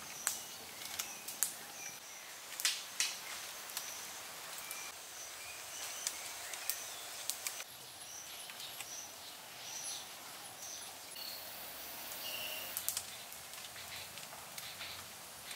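Forest ambience: a steady insect-like hiss with repeated short, high bird chirps. A few sharp clicks and knocks come from wooden sticks being handled and lashed into a frame, mostly in the first three seconds.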